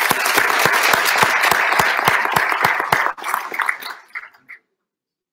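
Audience applause that thins out about three seconds in and dies away a second or so later.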